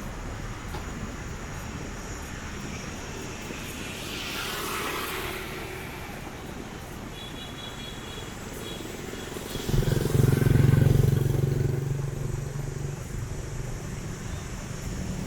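Street traffic of motorbikes and cars going by. One vehicle passes with a swell about five seconds in, and a louder, low engine passes close by about ten seconds in.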